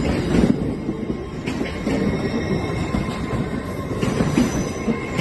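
A train running on the rails with a dense rumble, broken by a few sharp knocks of the wheels. A faint, thin, steady squeal from the wheels sits over it.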